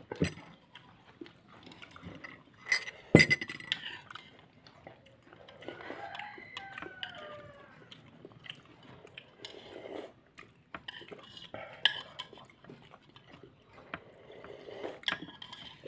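Mealtime clatter of dishes and cutlery: a spoon clinks sharply against a glass jug about three seconds in, the loudest sound, with scattered lighter clicks and knocks throughout. Around six seconds in, a drawn-out call falls in pitch over about a second and a half.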